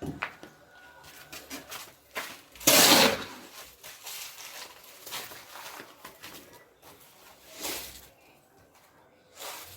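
Scrapes and knocks of hand tools working concrete mix, the loudest a half-second scrape about three seconds in, with smaller scrapes near the end.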